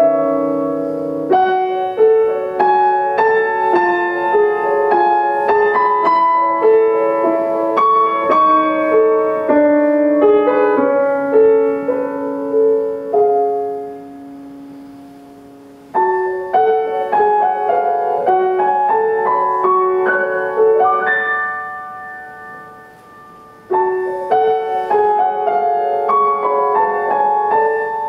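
Solo grand piano playing a melody over chords. The sound dies away twice, once near the middle and again about two-thirds through, each time before the next phrase comes in.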